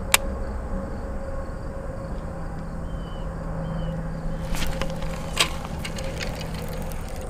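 Hands working a baitcasting reel and line: a sharp click just after the start and a few more clicks and ticks about five seconds in, over steady outdoor background noise with a faint low hum.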